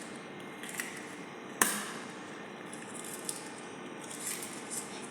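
Eggs being cracked and added to a bowl of dry mandazi ingredients: one sharp knock about a second and a half in, then a few lighter clicks and taps.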